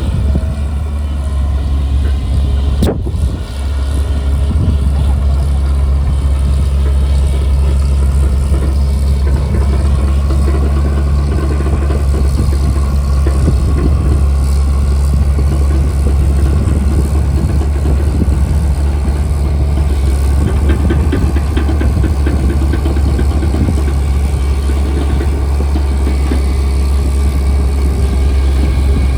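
Diesel engine of a JCB machine running steadily under work, a constant low drone with a single sharp click about three seconds in.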